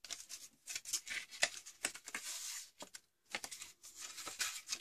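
A sheet of paper being folded and creased by hand along scored lines: irregular small crackles and rustles, with a longer sliding rustle about two seconds in.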